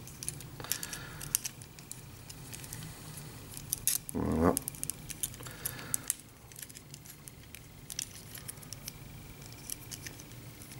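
Irregular small hard-plastic clicks and taps as a M.A.S.K. action figure is handled and fitted onto the seat of a Kenner M.A.S.K. Firecracker toy motorcycle.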